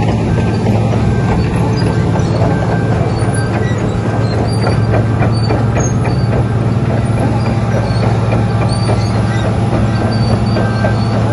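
Wirtgen W1200F cold planer's diesel engine running steadily, with fast metallic clattering and rattling over it from about three seconds in.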